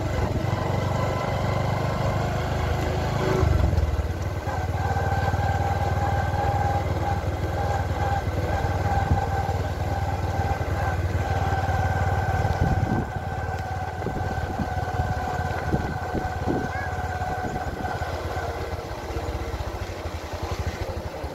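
A motorcycle engine running steadily at low road speed, with wind rumbling on the microphone.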